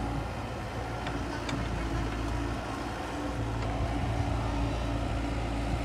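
Komatsu excavator's diesel engine running steadily as the machine works in a muddy ditch.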